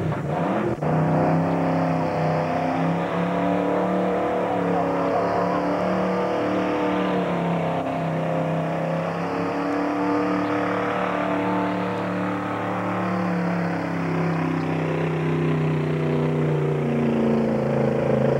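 Square-body crew-cab pickup's engine revving hard at high rpm under the heavy load of a pulling sled. The note holds steady, sags slightly a couple of times, and climbs again near the end.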